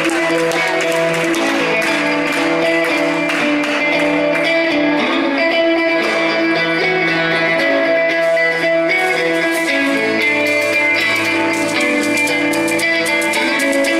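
Electric guitar played live through an Orange amplifier head and Marshall cabinet, with long held notes ringing and overlapping.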